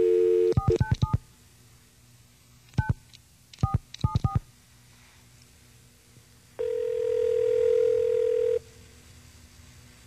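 Telephone call being placed: a brief dial tone, then touch-tone keypad beeps as a number is dialed in three quick runs. About six and a half seconds in comes one two-second ringback tone, the ring the caller hears while the other phone rings.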